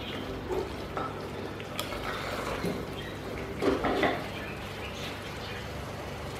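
Wooden spatula stirring and scraping chunks of potato and brinjal in masala inside a pressure cooker pot, with soft knocks against the pot's sides and a louder clatter about four seconds in.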